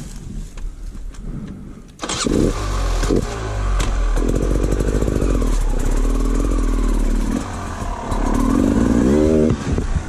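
Beta RR 300 two-stroke enduro motorcycle engine running quietly at low revs, then opened up sharply about two seconds in and held at high revs as the bike climbs a steep slope, revving up once more near the end before the revs drop away.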